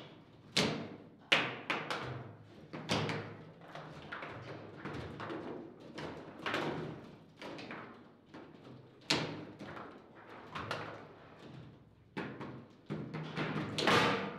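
Foosball table in play: the hard ball is struck, trapped and passed by the plastic figures, with irregular sharp clacks and knocks of the ball and rods, some much louder shots among softer taps, the loudest near the end.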